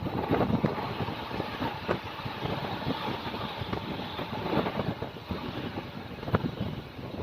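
Mumbai suburban local train running at speed: a steady rumble with irregular knocks and clatter, and wind buffeting the microphone.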